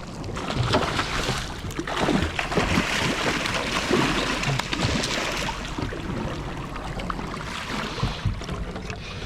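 Water splashing beside a small boat as a hooked salmon is brought alongside, heaviest for a few seconds early on and easing after, with scattered knocks.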